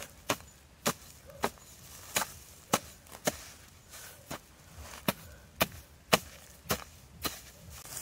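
Repeated sharp strikes of a small bladed hand tool chopping into dry grass and earth, about two a second with a short pause midway, as ground is cleared and dug for a fire pit.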